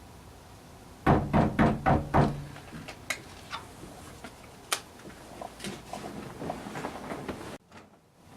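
Five loud knocks in quick succession about a second in, followed by scattered lighter taps and clicks.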